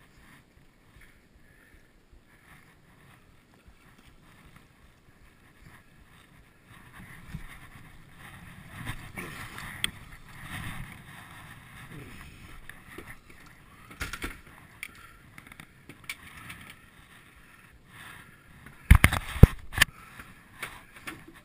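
Irregular splashing as a king salmon is gaffed at the side of a boat and hauled aboard. Near the end comes a cluster of loud knocks as the fish and the gaff hit the deck.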